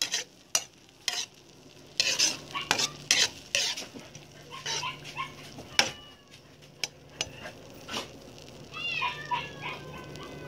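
Quail eggs being stirred in a sizzling wok: a spatula scrapes and knocks against the pan in irregular sharp clicks over the sizzle of the sauce. Near the end there are a few short, high, wavering calls.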